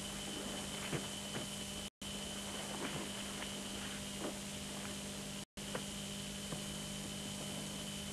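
Steady background hiss with a low hum and a thin high whine, marked by a few faint scattered crackles. The sound cuts out completely twice for a split second, about two seconds in and again past the middle.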